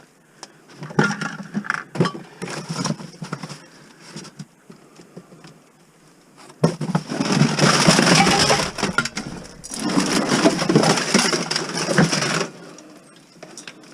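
Rummaging through clutter: objects being shifted and pulled about, with irregular rustling, scraping and small clattering knocks. It comes in short bursts at first and grows loud and dense about halfway through, easing off near the end.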